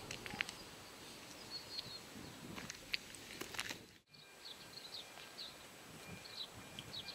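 Faint open-air field ambience with scattered sharp clicks, cut off for a moment about four seconds in, after which small birds chirp over and over.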